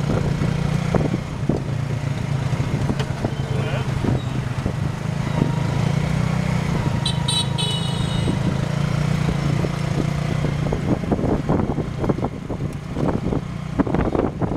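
The motorbike engine of a tuk tuk running steadily as it pulls the passenger carriage through street traffic, with a vehicle horn beeping briefly about seven seconds in.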